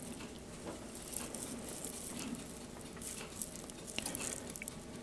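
Faint rustling and scattered small ticks from a bag of donut batter being squeezed and piped into a donut pan.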